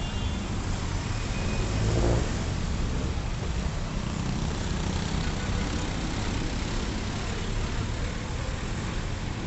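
Busy city street traffic: motorcycles and cars passing steadily through an intersection, with one vehicle passing louder about two seconds in.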